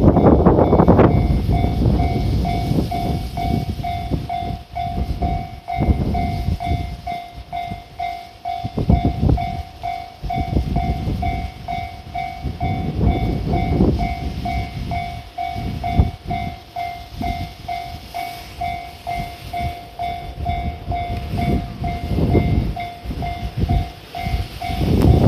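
Japanese level-crossing warning bell ringing steadily, about two dings a second, while a train rumbles and clatters over the crossing. The rumble is loudest at the start and again near the end.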